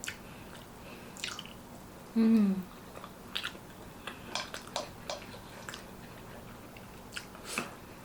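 Close-up chewing and mouth sounds of a person eating: scattered wet smacks and clicks. About two seconds in comes a short hummed 'mm' that falls in pitch.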